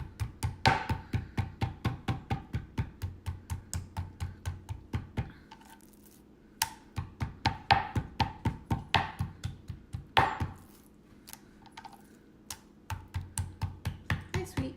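Back of a kitchen knife striking raw chicken breast to tenderize it: quick, even knocks about four a second, in three runs with short pauses between them.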